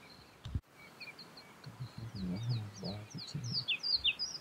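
Wild birds singing: a run of quick, high chirps that each slide downward, coming thicker in the second half. Low muffled sounds lie underneath from about two to three and a half seconds in.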